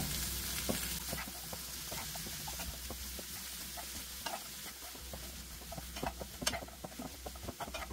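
Spatula stirring and turning cauliflower florets in a hot nonstick frying pan, with scattered scrapes and clicks against the pan over a steady sizzle of frying.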